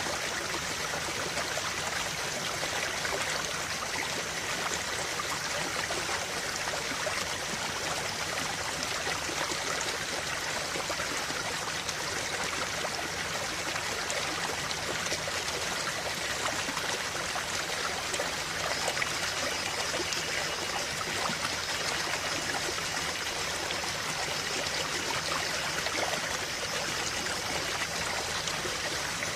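Small stream flowing over rocks, a steady splashing and trickling with fine bubbling detail.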